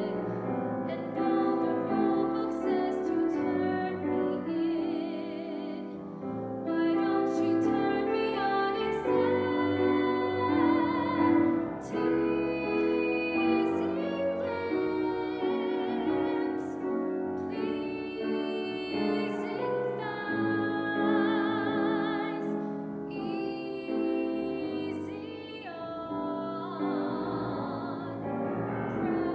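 A woman singing a musical-theatre song in a trained, operatic style, with vibrato on her held notes, accompanied by a Kawai grand piano.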